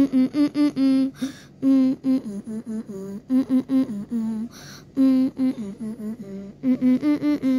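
A voice humming a short melody in quick pitched notes, the phrase repeating about every second and a half.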